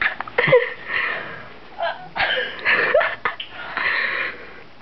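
A person's breathy vocal noises without clear words: short voiced sounds with quick pitch glides, and a longer hissing exhale near the end.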